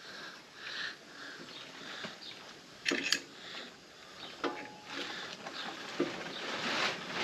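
Breathy hissing that comes and goes in puffs from the machine slowly pushing a front brake caliper piston back into its housing, with a few sharp clicks and knocks of metal handling partway through.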